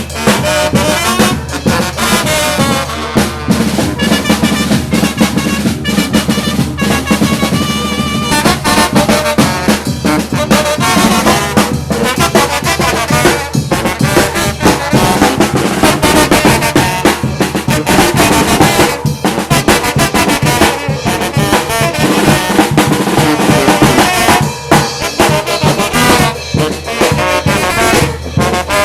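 Mexican brass band (banda) playing live: trumpets and trombones carry the tune over steady bass drum and percussion.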